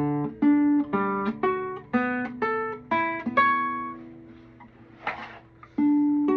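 Classical guitar played fingerstyle high on the neck around the 12th fret: a run of single plucked notes, about two a second, each ringing and fading. It pauses with a brief scrape of fingers on the strings about five seconds in, then a note rings again near the end.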